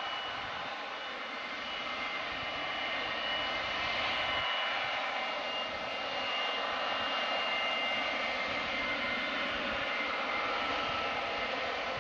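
Boeing 727's Pratt & Whitney JT8D turbofan engines running: a steady rushing jet noise with a high whine that drifts slightly in pitch, growing a little louder about four seconds in.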